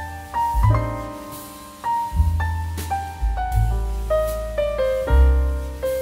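Jazz piano music: a run of single piano notes over low bass notes, with no break.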